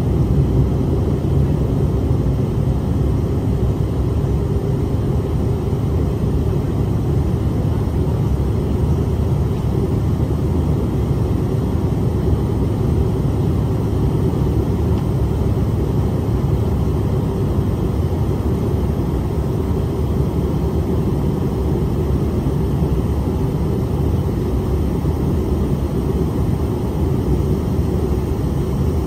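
Steady cabin drone of a Bombardier CRJ-700 in flight: its rear-mounted General Electric CF34 turbofan engines and the rush of air along the fuselage, heard from inside the cabin as an even, deep roar.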